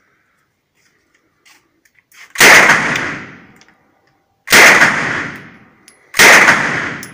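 Three single 9 mm shots from an Uzi submachine gun, about two seconds apart, each echoing through an indoor shooting range.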